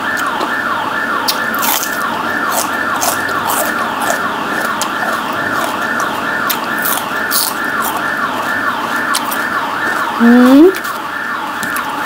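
Emergency-vehicle siren, a fast repeating falling wail that goes on steadily and stops at the end. About ten seconds in, a short loud voice sound rises in pitch over it.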